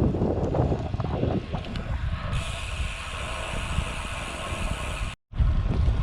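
Wind rumbling on the microphone while riding a road bicycle. About two seconds in, a steady high hiss with a faint whine joins it. The sound cuts out completely for a moment about five seconds in, then the wind rumble returns.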